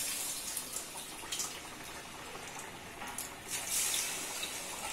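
Gare (vada) dough patties sizzling in hot oil in a kadai, a steady frying sizzle that flares louder about three and a half seconds in as another patty goes into the oil.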